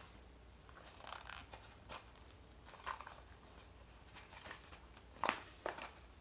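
Faint handling noises of toy cars on a plastic toy road track: light rustling and scattered small clicks, with a sharper click a little after five seconds in.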